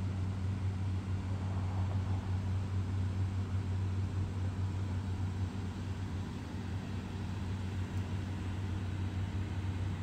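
A steady low mechanical hum that holds at one pitch without change.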